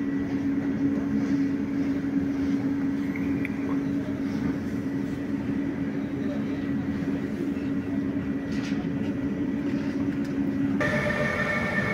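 Electric train hum, a steady low drone that holds level for most of the time. About eleven seconds in it cuts off suddenly and a different train sound takes over, with a steady high whine.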